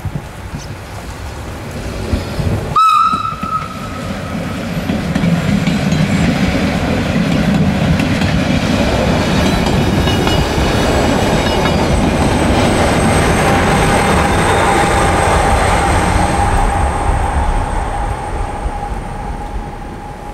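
Matterhorn Gotthard Bahn metre-gauge electric train sounding one short horn blast, then passing close by, its running noise building, holding for several seconds and fading near the end. A thin steady whine rises above the rumble in the later part.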